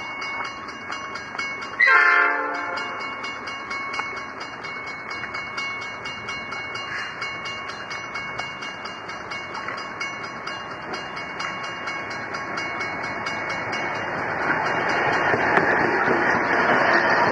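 NSW 82 class diesel-electric freight locomotives approaching and passing: a short horn blast about two seconds in, then the engines' running noise and the train's rolling noise build, loudest near the end as the locomotives go by.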